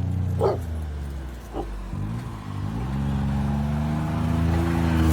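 A motor vehicle's engine running steadily; its pitch drops about two seconds in, then climbs again as it accelerates.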